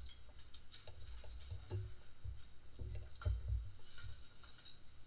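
Soft clicks and taps of chopsticks and spoons against bowls as people eat noodles, with low dull thumps on the table now and then.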